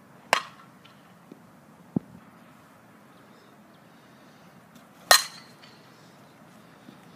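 Softball bat hitting a ball twice, each a sharp ping with a short ring, about five seconds apart: the first off a batting tee, the second a swing at home plate. A smaller, duller knock comes about two seconds in.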